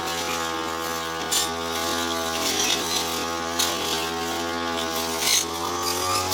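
Brush cutter engine running steadily while cutting tall, thick grass, with a few brief louder bursts.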